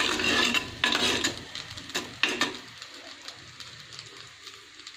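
A steel spoon stirring and scraping diced rice dumplings in an earthen clay pot, several strokes in the first half before it quietens, with a faint sizzle of the tempering over low heat.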